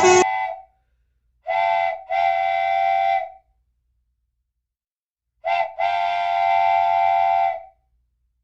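Train horn sounding a short blast then a long one, twice, each pair a few seconds apart, on one steady pitch.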